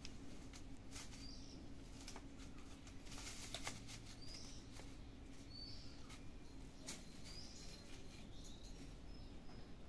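Faint crackling and clicks of a thin plastic bag being pawed and batted by kittens, busiest about three to four seconds in, with short high bird chirps repeating every second or so.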